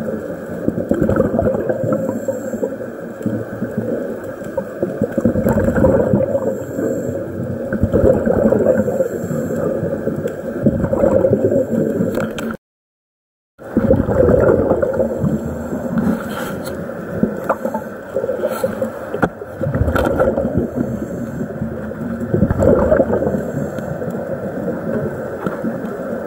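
Muffled underwater gurgling and rumble picked up by a camera in a waterproof housing, swelling and easing every few seconds. It cuts out completely for about a second midway.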